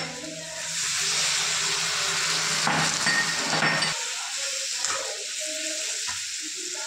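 Potato-and-pea curry sizzling in a kadhai: a loud steady hiss for the first few seconds, then quieter as a steel ladle stirs and scrapes the vegetables, with a couple of sharp ladle knocks against the pan.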